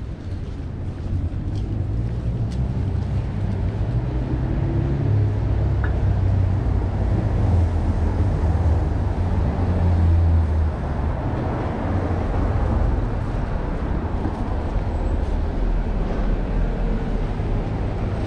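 Street traffic: a low engine rumble of passing vehicles that builds, is loudest about ten seconds in, then eases off.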